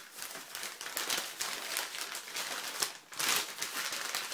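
Packaging crinkling and rustling as hands open a sealed parcel, a continuous irregular crackle with a louder burst a little past three seconds in.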